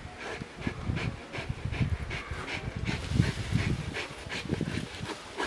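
A Rottweiler breathes hard in quick, uneven pants while gripping and tugging a spring-pole toy in its jaws, with scattered short knocks.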